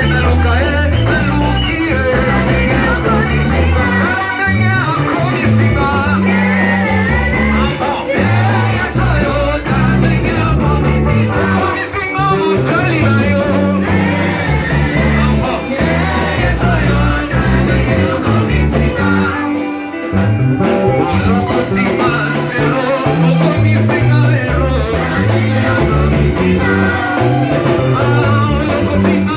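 Upbeat worship band music with singing over a moving bass line.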